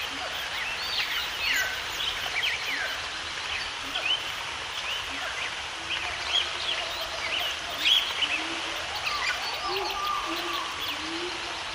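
A chorus of birds chirping and calling over a steady background hiss: many short, quick whistled notes throughout, joined by some lower, longer calls in the second half.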